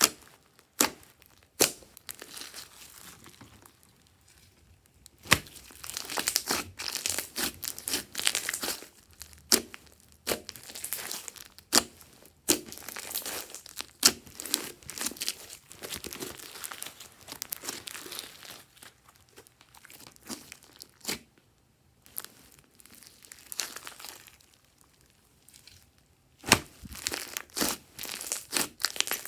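Hands kneading, stretching and folding glossy slime, giving irregular sticky clicks and crackles in spells, with short pauses between them.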